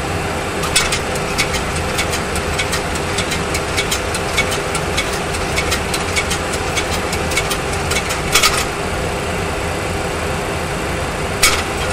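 Steady simulated jet engine and airflow noise in a Boeing 737 Classic full flight simulator cockpit, with a faint steady hum. Many sharp, irregular clicks run over it, the louder ones about a second in, at about eight and a half seconds and near the end.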